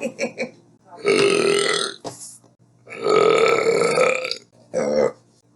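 A woman burping three times: a long burp about a second in, a longer one about three seconds in, and a short one near the end.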